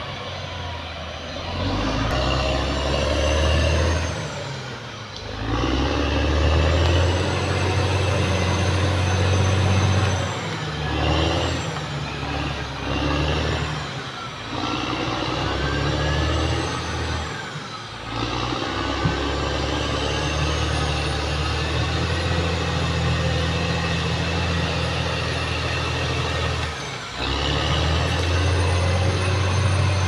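Caterpillar D6R XL bulldozer's diesel engine working under load, its pitch and power rising and falling as the throttle is worked, with a high whine that climbs and falls over it. The engine note drops off briefly several times.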